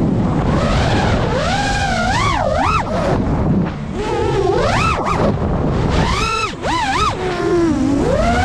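FPV racing quadcopter's brushless motors and propellers whining, the pitch swooping sharply up and down again and again as the throttle is punched and chopped through flips and dives, over a steady rush of wind.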